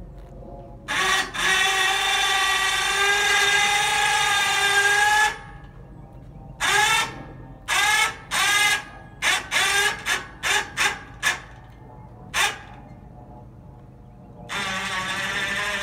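Electric winch motor whining as it lowers a trailer rack carrying two Hobie PA 14 kayaks. It runs steadily for about four seconds, then is jogged in about a dozen short spurts, each rising in pitch as the motor spins up, and near the end runs steadily again.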